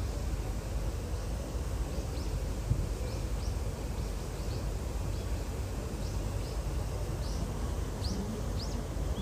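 Small birds chirping: short, high, rising chirps every so often, more of them in the second half, over a steady low rumble of outdoor background noise.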